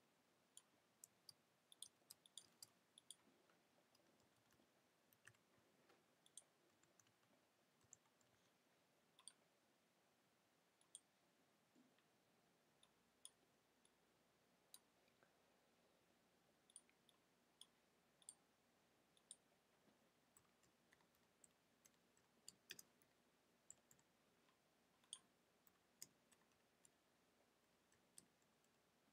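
Faint, irregular clicks of a computer mouse and keyboard, dozens of single clicks and keystrokes with short gaps between them, as an IP address is selected and answers are typed in.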